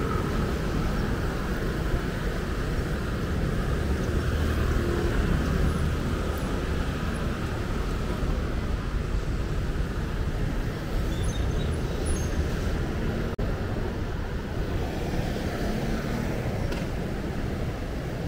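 Steady city street traffic noise, a continuous hum of passing cars and other vehicles.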